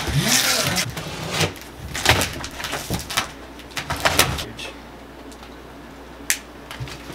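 Large cardboard shipping box being opened by hand: flaps pulled up, scraping and rustling, with several sharp crackles. It settles to a quieter rustle after about four and a half seconds, with one sharp click near the end.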